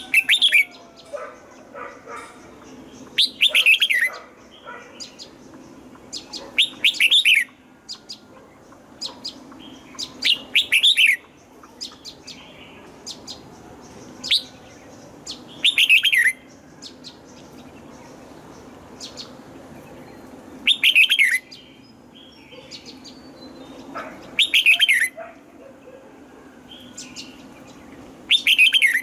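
Red-whiskered bulbul singing short loud phrases of quick falling notes, about one phrase every three to four seconds, with softer chirps in between. A faint low steady hum runs underneath.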